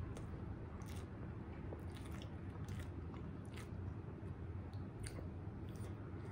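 A person chewing a mouthful of cheeseburger, with irregular soft wet clicks of the mouth over a steady low hum.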